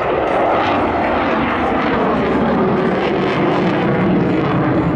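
Eurofighter Typhoon's twin Eurojet EJ200 turbofan engines heard in flight: a loud, steady jet noise.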